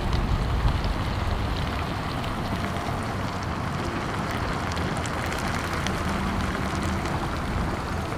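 Steady frying hiss with fine crackles from meat sizzling in a discada pan.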